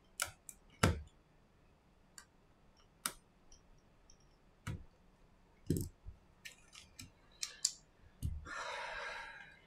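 Small clicks and taps of an iPhone XS's parts and tools being handled on a silicone repair mat, with a few duller knocks as pieces touch down. Near the end, a knock is followed by about a second of rustling or scraping as the phone body and the new display are moved on the mat.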